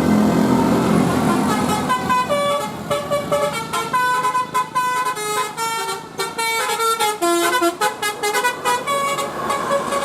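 Basuri telolet bus horn playing a fast melody of short stepped notes that jump up and down in pitch. It starts about a second and a half in over a running engine, which fades under the horn.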